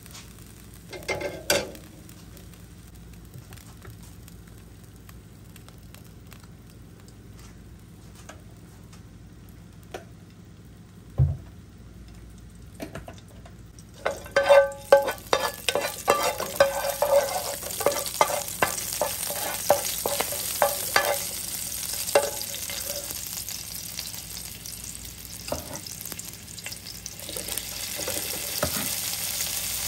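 Metal spoon clicking and scraping in a nonstick frying pan of hot oil with garlic and chilli. About halfway in the oil starts sizzling and crackling under repeated spoon strokes, and near the end the sizzle grows louder and steadier as sliced beef goes into the pan.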